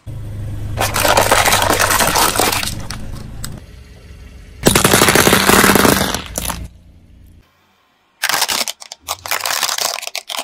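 A car tyre rolling slowly over small objects and crushing them, in three bouts of dense crackling and snapping. The first bout, with a low steady hum underneath, is wire-frame ornaments being flattened. The last bout, after a brief silence, is plastic toy cars breaking.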